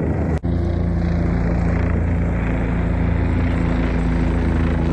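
Steady drone of a helicopter's engine and rotor, briefly cut off about half a second in.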